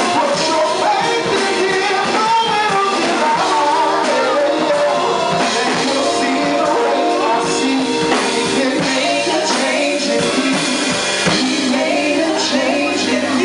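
Live gospel band playing, with a drum kit keeping the beat and voices singing over it.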